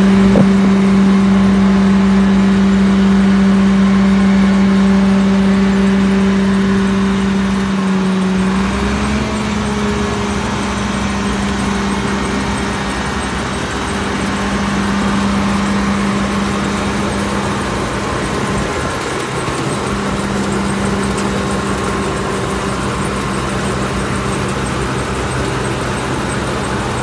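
New Holland Clayson 1545 combine harvester with an Alkan straw-chopper attachment running while parked, its engine and threshing machinery giving a loud, steady hum. The hum falters about eight seconds in and comes back unevenly.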